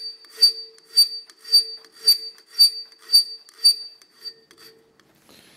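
Curved tooth file stroking across a weld bead on a high-strength aluminium forging held in a vise, about two strokes a second, each stroke setting off a high-pitched ring, a pesky noise. The strokes fade and stop near the end.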